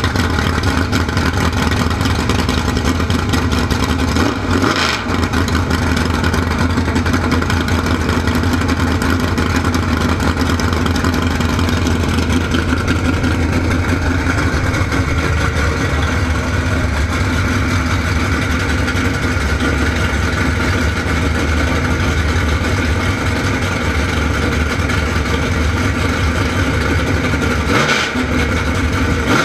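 Drag boat's V8 racing engine with open exhaust headers running steadily on its trailer, dipping briefly twice, about five seconds in and near the end.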